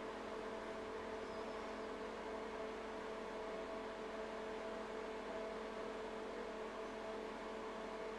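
Steady low-level electrical hum with a few constant tones: workshop room tone.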